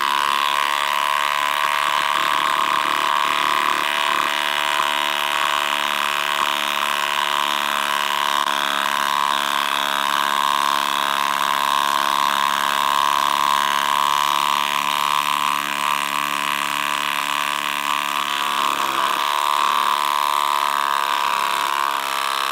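Milwaukee M18 Fuel impact driver hammering at full speed under heavy load, driving a 1/2-inch by 10-inch lag bolt into treated timber. The steady rattle keeps up without a break and stops abruptly at the end as the bolt seats.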